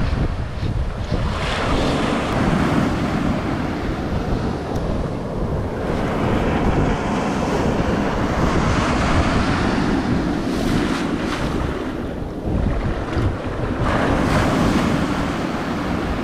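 Small surf breaking and washing up a sandy beach close by, swelling and easing in surges every few seconds, with wind buffeting the microphone.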